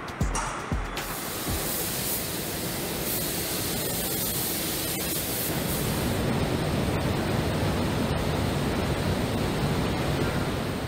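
A steady, even rushing noise spread across all pitches, swelling slightly in the low end in the second half. The last beats of an electronic music track sound in the first second.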